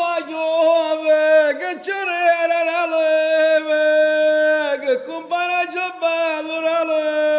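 A man singing a street vendor's cry praising olives: a drawn-out, wavering, ornamented melody in two long phrases, with a short breath about five seconds in.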